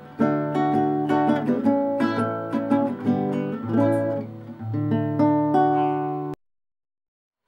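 Acoustic guitar intro music, a quick run of plucked notes over a steady bass note, that cuts off suddenly about six seconds in, leaving a second of silence.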